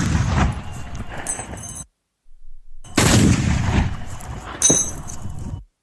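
Powerful rifle shots, each followed by a spent cartridge casing dropping and ringing. The echo of one shot dies away with a metallic tinkle about a second in. A second loud shot comes about three seconds in, and a casing rings sharply as it lands near the end.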